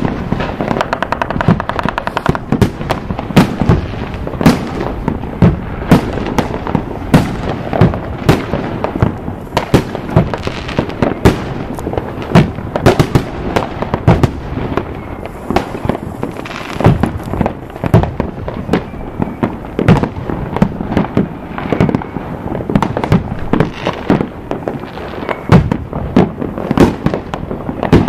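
Fireworks going off in a continuous barrage: sharp bangs and cracks of bursting shells, several a second and overlapping, over steady crackling.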